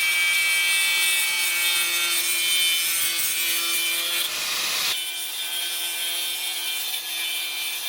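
Angle grinder running and grinding rusty sheet-metal floor pan, a continuous abrasive hiss over a steady high motor whine; the grinding noise eases about five seconds in while the whine carries on.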